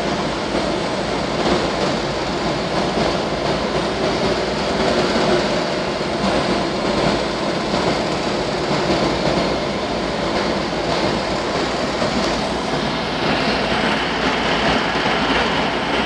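Screw-type continuous carbonization furnace running: a steady, unbroken machinery noise of burner, fans and conveyor, turning a little hissier about thirteen seconds in.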